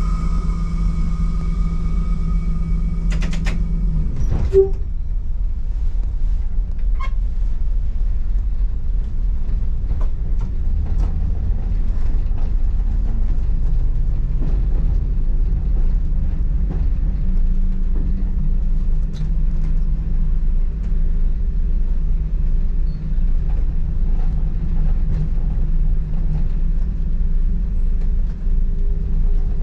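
Class 117 diesel multiple unit under way, heard from inside the driving cab: a steady low rumble of engines and wheels on the rails, with scattered light clicks. A steady high-pitched tone sounds at the start and stops about three and a half seconds in, with a single knock soon after.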